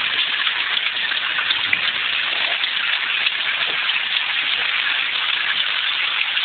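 Steady rushing noise of a river in full flood, the water pouring past without let-up.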